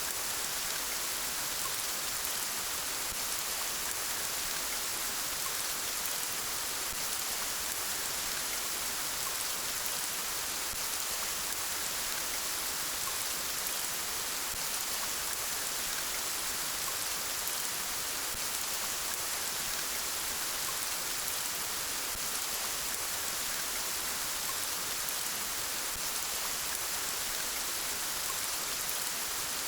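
Steady rain falling, an even hiss of drops on a surface with faint scattered patters and no change in intensity.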